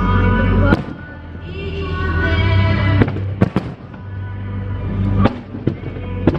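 Fireworks shells bursting in sharp bangs, about half a dozen spread irregularly through the moment, over loud music with held notes and a heavy low bass.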